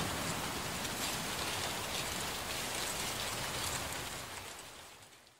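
A steady, even hiss like rain or dripping water that fades out near the end.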